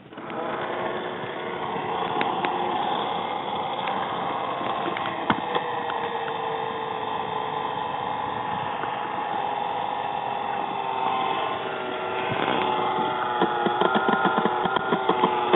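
An engine running steadily, with its pitch drifting slightly; near the end a fast, regular ticking of about four or five beats a second joins in.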